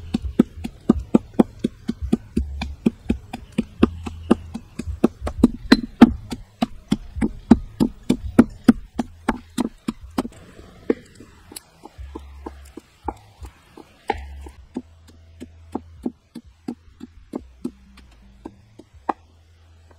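Stone pestle pounding chillies and herbs in a stone mortar: quick, even strikes, about three to four a second, that turn slower and scattered about halfway through and stop shortly before the end.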